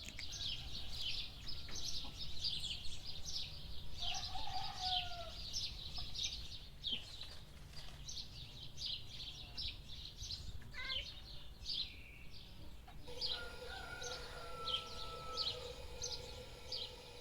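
Small birds chirping rapidly and continuously, with a short falling chicken call about four seconds in and a long, drawn-out rooster crow near the end.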